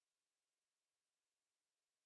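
Near silence: a faint, steady hiss of digital noise and nothing else.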